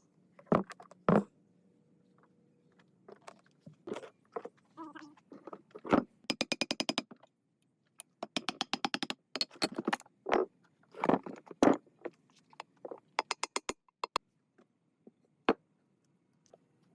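Metal parts and hand tools being handled: scattered knocks and clinks with some scraping, and three runs of rapid, even clicking at about a dozen or more clicks a second.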